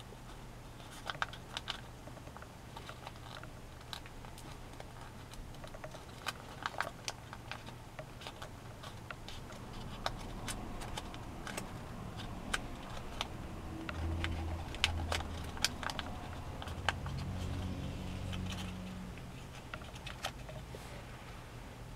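Folded origami paper crackling and clicking in the hands as a paper sea turtle is pressed and shaped: irregular crisp ticks scattered throughout. A low steady hum sits underneath, and a deeper drone swells up in the second half.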